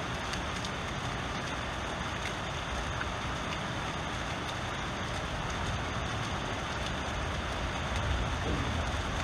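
Heavy rain pouring steadily, with water streaming and splashing down a rain chain from the roof gutter. A low rumble grows a little near the end.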